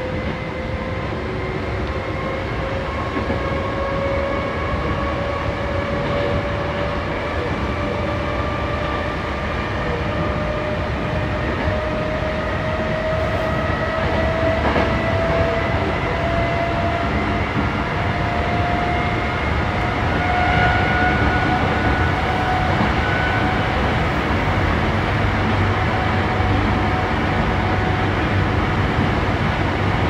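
Sanyo Electric Railway train heard from inside the front car, gaining speed: the electric traction drive whines in a few tones that climb slowly and evenly in pitch over a steady rumble of wheels on rail.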